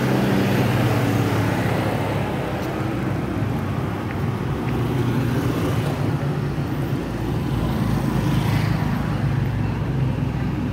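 Motor scooters riding past one after another, small engines running steadily over continuous road traffic noise.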